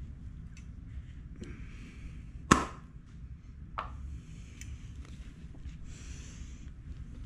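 Handling noise: a paper napkin rustling, with one sharp, loud knock about two and a half seconds in and a fainter one over a second later.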